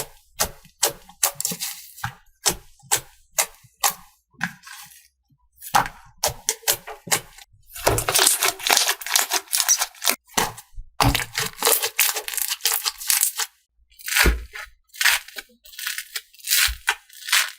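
Slime being squished and pressed by hand: irregular sticky clicks, pops and crackles, with denser crackling stretches about eight and eleven seconds in.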